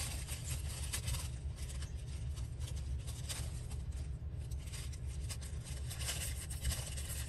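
Paper being handled and shuffled, with faint scattered rustles and crackles over a steady low hum.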